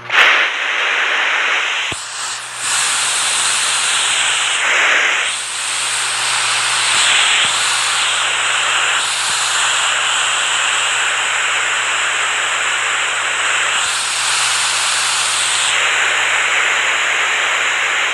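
Rushing water: a steady, dense hiss that swells and eases a little now and then.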